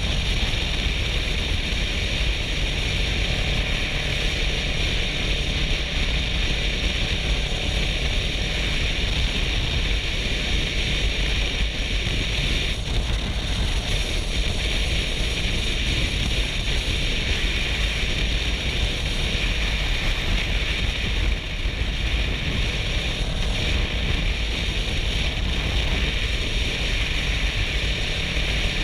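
Kawasaki Versys 650 parallel-twin motorcycle at steady highway cruising speed: constant wind rush over the rider and microphone with the engine running underneath, picked up by a GoPro.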